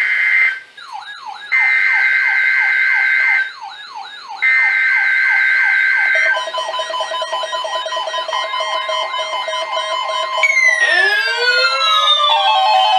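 Emergency Alert System SAME header from a NOAA Weather Radio test: three bursts of shrill two-tone digital data screech, each about two seconds long, a second apart. Under and between them runs a siren-like tone sweeping up and down about three times a second. After the bursts come steady electronic alert tones, a cascade of falling and rising glides and a held tone near the end.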